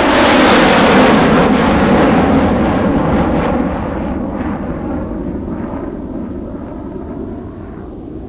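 A loud, deep rumbling roar that swells to its peak about a second in, then slowly fades over the next several seconds, with a few faint sharp hits near the end.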